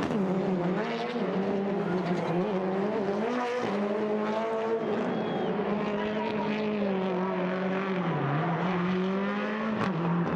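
Turbocharged rallycross car engine running hard at high revs, its pitch holding fairly level with short dips where the driver lifts or shifts, a deeper dip about eight seconds in and a sharp drop and climb near the end.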